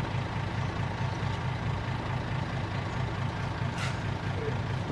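Heavy truck's diesel engine running steadily, with a brief hiss of air near the end.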